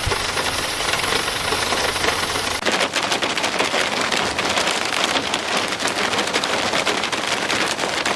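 Hail clattering densely on hard surfaces: a rapid, continuous crackle of countless impacts. About two and a half seconds in, the sound changes abruptly to sharper, crisper hits.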